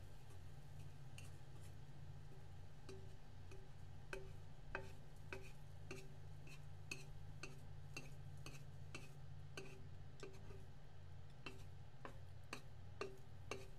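Chopsticks clicking and tapping against an electric skillet's pan while lifting and folding a thin sheet of cooking egg for tamagoyaki. The light, irregular ticks come more often after about three seconds, over a low steady hum.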